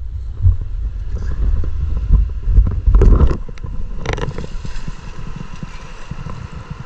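Low rumble of wind buffeting the microphone, with scattered knocks and two short louder noises about three and four seconds in.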